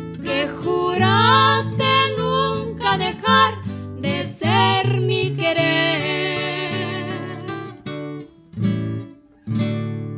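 Two women singing together with wide vibrato over two acoustic guitars strumming chords. The voices stop about 8 seconds in; the song closes with a few strums and a last chord left ringing.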